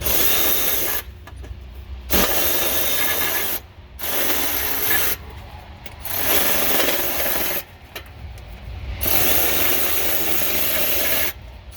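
Ratchet wrench backing off 10 mm nuts on the engine heat shield cover, clattering in five bursts of one to two seconds with short pauses between.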